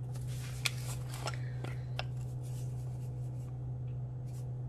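A metal fork scraping and ticking in a ceramic mixing bowl of flour, a few light strokes, over a steady low hum.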